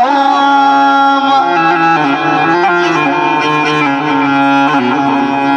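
Electronic keyboard playing an instrumental passage in Middle Eastern style between the sung verses of an Iraqi mawwal, with long held notes over a steady low line.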